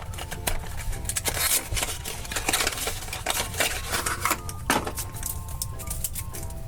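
Foil wrapper crinkling and crackling as it is peeled off a chocolate surprise egg, with light music underneath.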